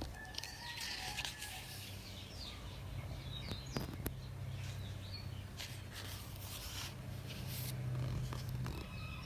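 Quiet background with a steady low hum and a few short, faint bird chirps, and a single sharp click about four seconds in.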